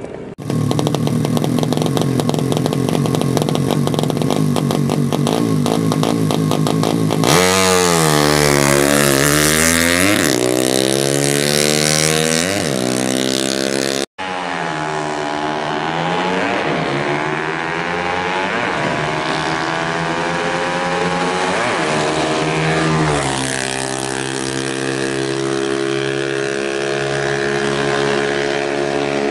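Kawasaki Ninja motorcycle engine being revved: held high at first, then rising and falling in pitch several times over, with a sudden break about halfway and more revving after it. The engine is said to be coughing, i.e. running rough.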